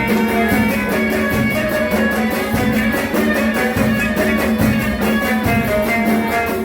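Instrumental passage of Moroccan aita music: violin and other string instruments playing the melody over a fast, steady hand-drum rhythm, without singing.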